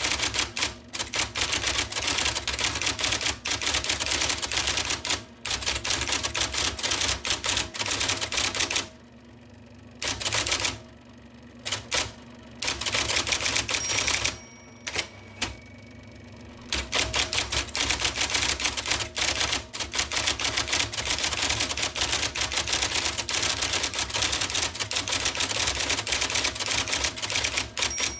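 1979 IBM Selectric II electric typewriter typing fast, its golf-ball typing element striking in a rapid clatter of keystrokes. The typing breaks off briefly about nine, eleven and fourteen seconds in, then runs on.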